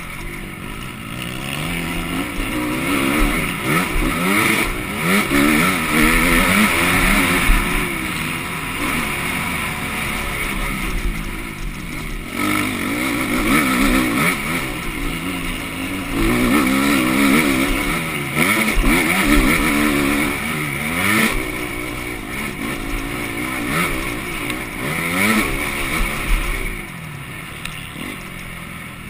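Motocross bike engine racing on a dirt track, heard close up from the bike itself, its pitch climbing and dropping over and over as the rider opens and shuts the throttle through the corners and jumps.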